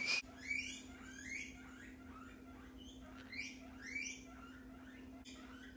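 Guinea pigs wheeking: a faint run of repeated high squeals, each rising in pitch, thinning out toward the end. It is their food-begging call, set off by the fridge opening and bags of kale rustling.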